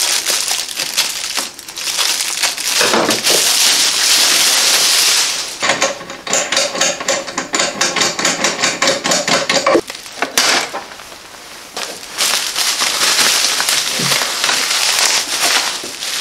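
Plastic bubble-wrap packaging crinkling and rustling as it is pulled off by hand, with a rasping stretch of a few seconds in the middle and a quieter spell shortly after.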